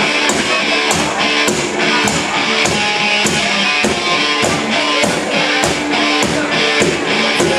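Rock music: strummed electric guitar over a drum kit keeping a steady beat.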